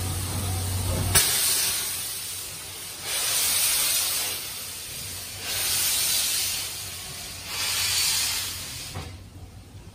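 C11 steam tank locomotive moving slowly past, blowing steam from around its cylinders in four hissing bursts about two seconds apart. A steady low hum stops with a sharp crack about a second in.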